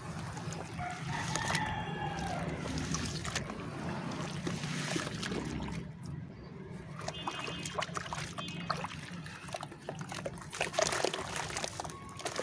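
Lumps of dry red dirt crumbling in water, with many small crackles over a wet trickling background.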